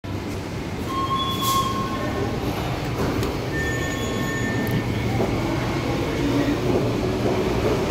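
Railway platform ambience from an MTR East Rail line train moving through the station: a steady rumble with a few brief high-pitched squeals, about one second in and again around four seconds in.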